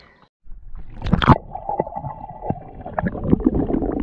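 Muffled underwater sound of an action camera submerged in shallow seagrass: water sloshing and gurgling, loud knocks against the camera about a second in, and a steady hum underneath.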